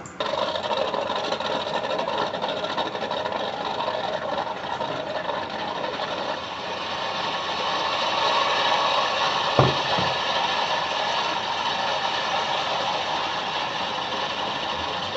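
Motorboat engine running steadily, with one short thump about ten seconds in.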